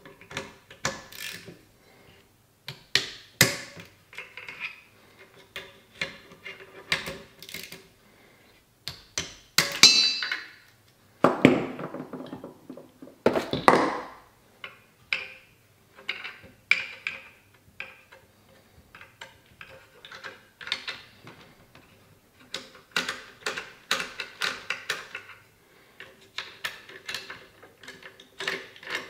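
Small metal clicks, taps and knocks of a rifle's action screws, a T-handle driver and the chassis being worked by hand, coming irregularly, with two longer scraping rubs near the middle.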